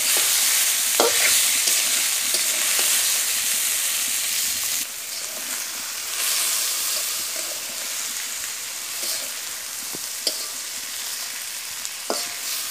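Small fish, onion and green chilli sizzling in hot oil in a metal pot while being stirred with a metal spatula, which scrapes and taps the pot a few times. The sizzle is louder for the first few seconds, then drops a little about five seconds in.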